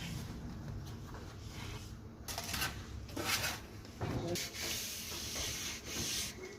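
A hand tool scraping and rubbing over cement render, in a series of rough strokes that start about two seconds in.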